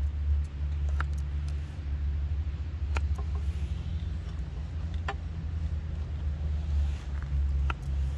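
Knife slicing a tomato on a wooden cutting board, the blade tapping the board sharply about every two seconds, over a steady low rumble.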